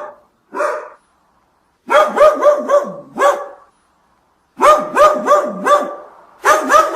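A dog barking in quick runs of short, high barks, about four a second, with pauses between the runs.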